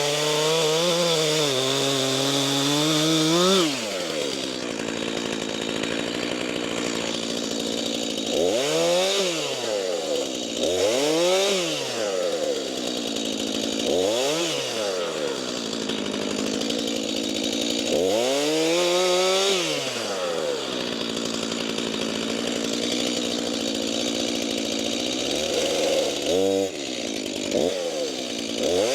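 Two-stroke Stihl chainsaw with a freshly sharpened chain cutting cherry logs. It is held at full throttle in a cut for the first few seconds, then drops to idle. It then revs up and falls back to idle about five more times, with one longer run near the middle.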